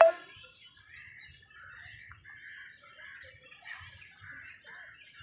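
Many birds chirping and chattering at once in a continuous chorus, with a brief loud pitched tone at the very start.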